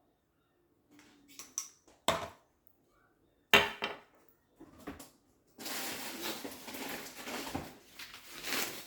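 Green depression-glass dishes clinking and knocking against each other as they are handled, with one sharp clink about three and a half seconds in. From about halfway on, a steady crackle of packing paper being rustled as the dishes are unwrapped.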